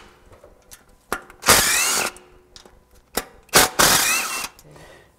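Cordless power tool spinning 8 mm bolts out of a Polaris RZR engine's stator cover, in two short runs that each rise to a whine, with a few clicks between them.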